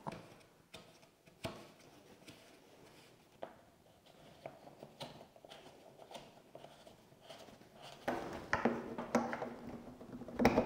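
Handling noises from a wallpaper steamer being made ready: a few scattered plastic clicks and knocks, its water-tank cap being screwed and its power plug pushed into a socket, busier from about eight seconds in and with a sharper click near the end.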